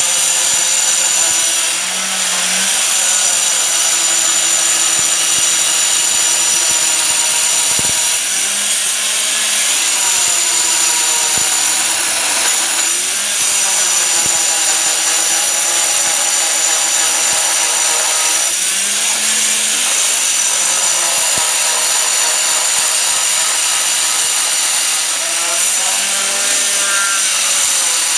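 Stone-cutting machine running and cutting stone: a loud, continuous high grinding hiss whose pitch dips and recovers now and then as the blade takes the load.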